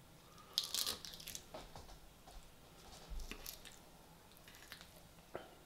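Faint eating sounds: a metal fork clicking and scraping against a plate and the crunch of salad, in a few short clusters of clicks and crackles about a second in, around three seconds in and once near the end.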